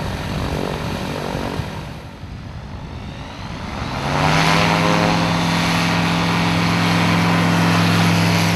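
The Rotax 912S flat-four engine and propeller of a Zenith STOL CH 701 light plane running at full take-off power through a short take-off run to lift-off. It dips quieter for a moment, then grows louder about halfway through with a brief rise in pitch, and holds a steady loud, even pitch to the end.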